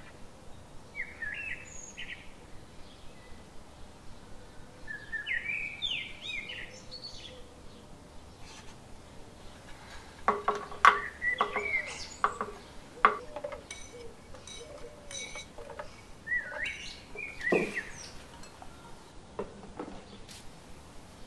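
Birds chirping in short runs of rising and falling notes. About ten seconds in, chopped raw mango pieces tumbling out of a bowl make a run of knocks and clinks, with one more sharp knock a little later.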